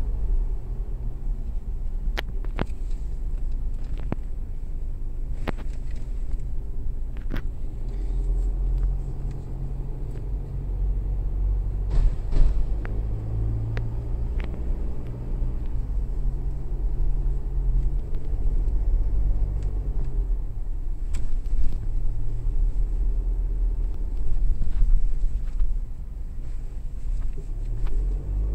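Car engine and road noise heard from inside the cabin while driving: a steady low rumble whose engine note rises and falls a little, with a few sharp clicks in the first half.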